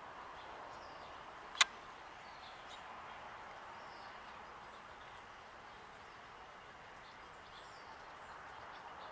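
Steady outdoor background noise with a few faint, short, high bird chirps, and one sharp click about a second and a half in.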